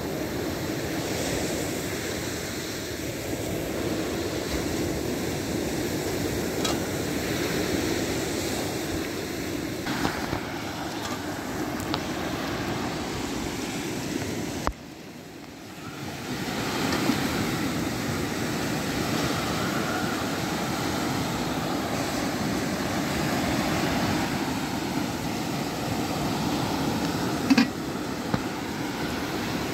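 Steady wash of ocean surf with wind buffeting the microphone, and a few brief knocks, the sharpest near the end.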